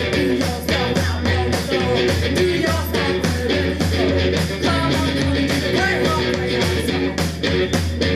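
Garage punk band playing live: electric guitar over a driving, steady drum beat on a standing kit, with a sung vocal.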